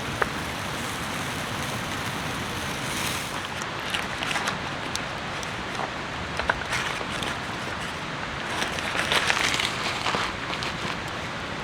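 Steady rain falling, with a few sharp ticks scattered through it and a busier patch of them near the end.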